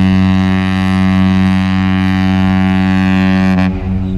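Container ship OOCL Busan's whistle sounding one long, low, steady blast that cuts off sharply about three and a half seconds in. It is one of several blasts the ship sounds as it leaves port.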